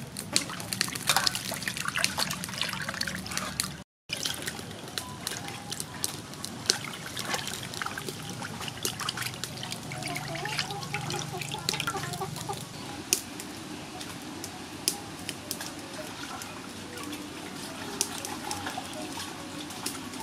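Hands squeezing and rubbing raw pig intestines in an aluminium basin of water, with irregular splashing, trickling and dripping. The sound cuts out for an instant about four seconds in.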